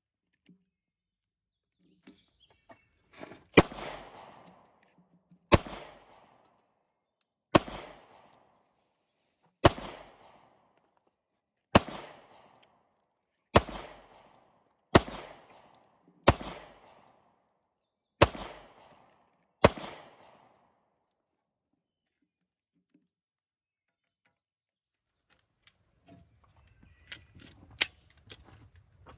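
Glock 27 subcompact pistol in .40 S&W firing ten single shots, one every one and a half to two seconds, each with a short echoing tail. Near the end, light clicks and rattles of handling the pistol and magazines.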